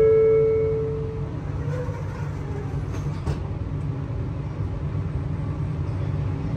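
Steady low hum and rumble of a metro train standing at an underground platform. A few held tones, musical or chime-like, die away about a second in.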